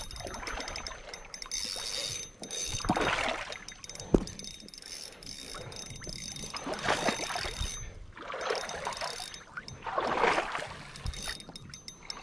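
Shallow river water sloshing and splashing close by in several irregular surges, as a fish is held in the water and let go, with one sharp knock about four seconds in.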